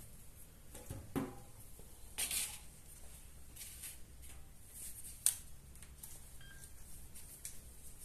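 Quiet handling noises: a low knock about a second in, a brief rustle around two seconds, and a sharp click past five seconds, with a few fainter ticks over a low steady hum.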